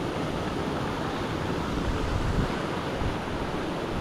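Water rushing and splashing over a rock ledge in a small creek waterfall, a steady, even rush, with some low wind rumble on the microphone.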